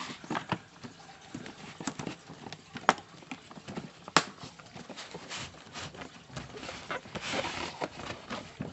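Handling and unpacking an air-tool case: irregular taps and knocks as the printed sleeve and grey plastic case are turned over on the table, with two sharp knocks about three and four seconds in and a brief scraping slide near the end.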